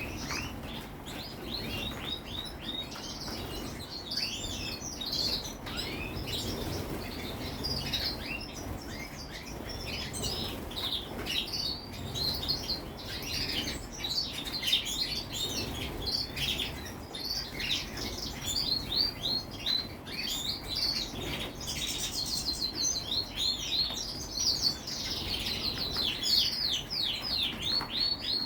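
A flock of small birds chirping continuously, many short high calls overlapping, growing busier toward the end.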